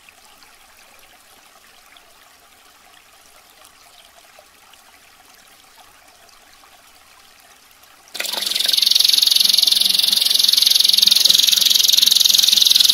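Faint trickling water, then about eight seconds in a canary breaks into a loud, rapid, high-pitched rolling trill, the close-packed 'tembakan' shot song.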